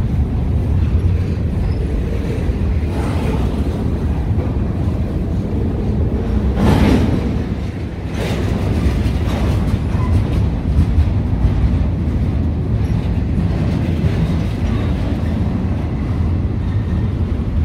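A train rolling past on the tracks: a steady low rumble with a few sharp clacks scattered through it.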